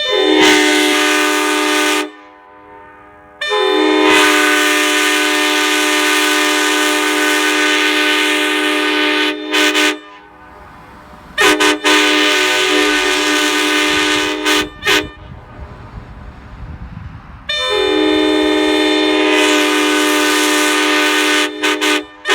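Nathan Airchime K5LA five-chime locomotive air horn blown unrestricted. It sounds a string of long blasts of one steady chord, three of them followed by two quick short toots.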